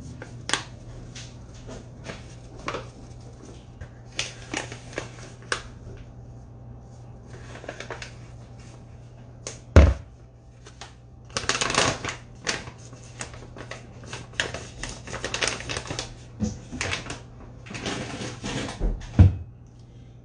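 Kitchen handling noises: a run of clicks, taps and clatter as a bowl and utensils are handled, with one heavy thump about halfway through, over a steady low hum.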